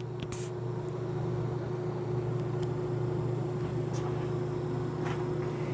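Briggs toilet flushing: a steady rush of water under a steady hum, rising slightly after the first second and stopping near the end.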